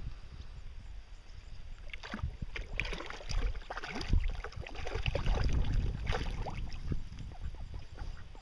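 Water splashing and sloshing as a duck dabbles and feeds at the surface: a dense run of small splashes from about two seconds in until about seven seconds, over a low rumble.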